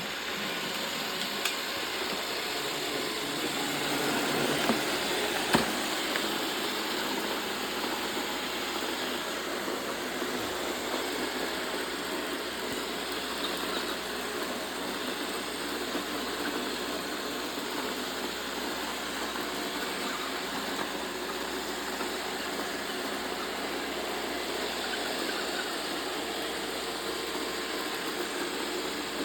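Roomba robot vacuum running with a steady whirring hum, with a few short sharp knocks in the first six seconds.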